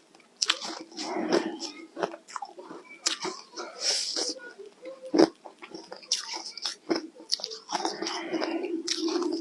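Close-miked biting and chewing of ice dusted with matcha powder: irregular sharp crunches and crackles, one after another.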